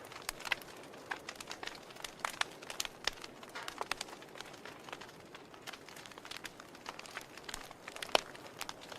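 Log fire crackling: burning wood giving irregular sharp pops and snaps over a soft steady hiss, with the loudest pop near the end.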